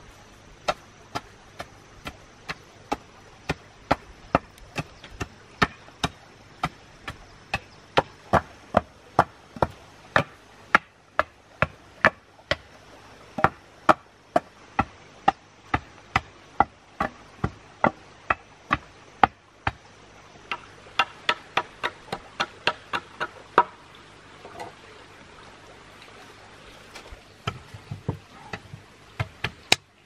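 Steady chopping of wood with a jungle knife, about two sharp strikes a second. The strikes pause about three-quarters of the way through, then a few come in quicker succession near the end.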